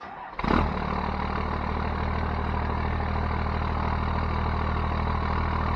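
Diesel truck engine idling steadily, coming in suddenly about half a second in.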